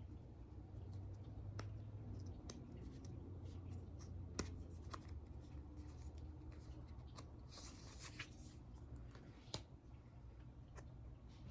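Oracle cards being flipped through by hand: faint scattered taps and slides of card stock, with a short run of sliding, scraping sounds about eight seconds in.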